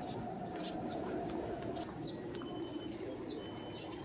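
Small birds chirping in short, scattered high calls over a steady low hum of town ambience.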